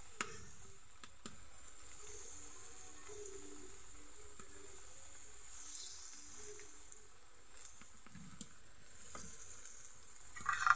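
Rice-flour dough pieces frying in hot oil in an iron karahi: a faint, steady sizzle, with a few light clicks as more pieces are dropped in. A brief louder sound comes just before the end.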